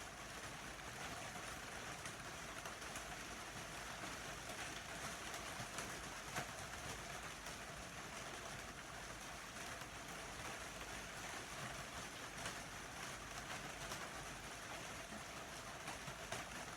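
Steady rain falling: an even hiss with scattered faint drip ticks.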